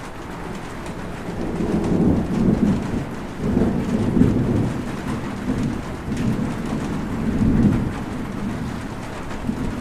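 Steady rain with rolling thunder. The thunder builds about a second and a half in and rumbles on in several swells, rising and falling.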